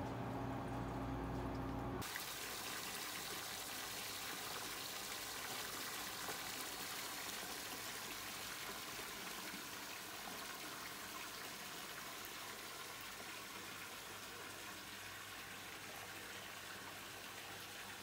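A low steady hum for about the first two seconds, then hot-spring water pouring from a spout into a full bath tub: a steady rush and splash of the falling stream on the water's surface.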